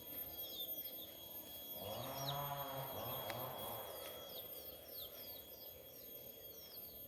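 Small birds chirping over outdoor background noise, short falling chirps repeating several times a second. About two seconds in, a low, drawn-out pitched sound lasts for about a second and a half.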